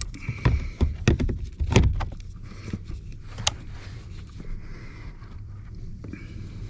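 Knocks and clicks of a blower motor assembly being handled and fitted into its housing during a swap. A cluster of knocks comes in the first two seconds and one sharp click follows about three and a half seconds in, over a low steady hum.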